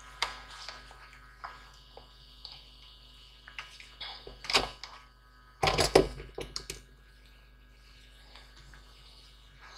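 Tools being handled on a workbench: scattered clicks and knocks, with a louder clatter about six seconds in, over a faint steady hum.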